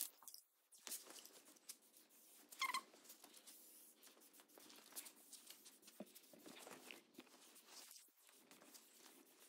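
Faint handling of masking paper and tape, with a short squeaky screech of tape pulled off the roll about three seconds in.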